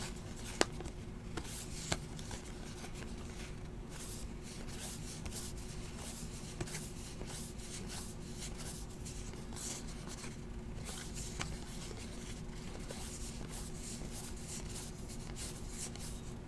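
Trading cards being handled and sorted by hand: soft, irregular rustles and slides of card stock against card stock, with a sharper tap about half a second in and another about two seconds in. A faint steady hum runs underneath.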